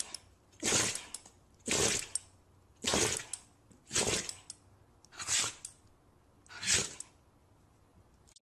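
A dog sneezing over and over, six sharp sneezes a little over a second apart.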